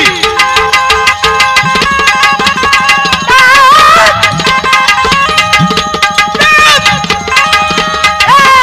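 Folk music: tabla played in a fast, dense rhythm under held melody notes, with a wavering melodic line coming in about midway.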